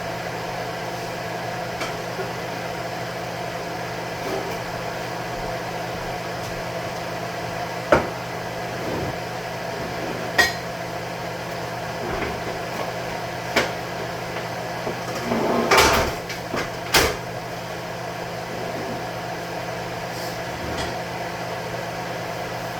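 Steady hum of a kitchen range-hood vent fan, with scattered knocks and clatter of dishes and cupboards. A louder run of clattering comes about two-thirds of the way through.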